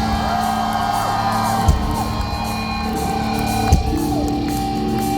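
Live rock band holding sustained chords, with a heavy drum hit about every two seconds, here twice. Crowd whooping and yelling rides over the music.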